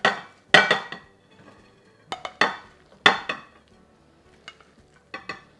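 Sauce-coated fried chicken being tipped and scraped from a stainless steel bowl onto a ceramic plate: a run of sharp clatters and knocks of metal on crockery. The loudest come in the first second and around three seconds in, with lighter knocks near the end.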